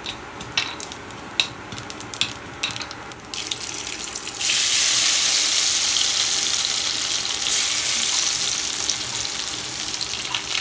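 Nigella seeds crackling and popping in hot mustard oil in a kadai. About four seconds in, crushed garlic goes into the oil and a loud, steady sizzle starts, easing off gradually.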